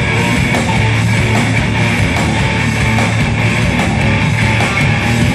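Hard rock band playing live: electric guitars, bass guitar and a drum kit in a loud, dense, continuous wall of sound, with steady drum hits throughout.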